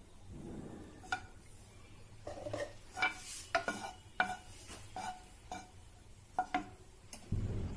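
Kitchen utensils knocking and scraping against a non-stick frying pan as a spoonful of ghee is pushed around in it: a dozen or so short, ringing clinks.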